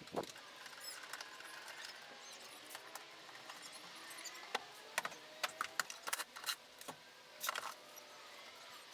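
Irregular sharp clicks and light taps, with a cluster of quick clicks in the second half and a few faint squeaks, like small hard objects being handled.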